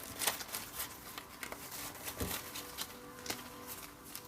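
Soft, irregular rustling and small taps from handling, with faint steady background music underneath.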